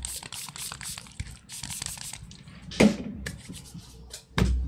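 Hands rubbing together, spreading alcohol sanitizer, in a run of quick rustling strokes. Two louder thumps come about three seconds in and near the end.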